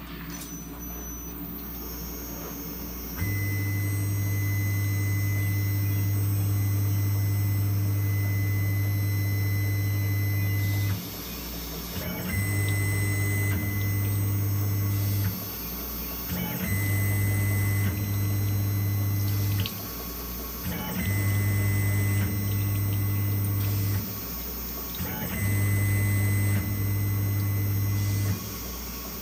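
Tormach PCNC 1100 CNC mill running an engine-turning program, an abrasive stick working an aluminium plate under splashing flood coolant. A loud electric hum with a high whine starts about three seconds in and then cuts out briefly every few seconds, coming back each time, over a steady hiss.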